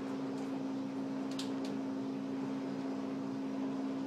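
A steady low machine hum, like a fan or air-conditioning unit, with a few faint short clicks in the first couple of seconds.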